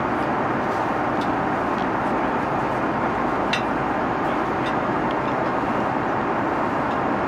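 Steady rushing cabin noise of an Airbus A330-300 in flight, the even sound of engines and airflow heard from inside the business-class cabin, with a few faint clicks and clinks over it.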